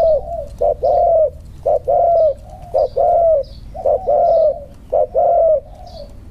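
Spotted dove cooing, a short note followed by a longer one, repeated about once a second.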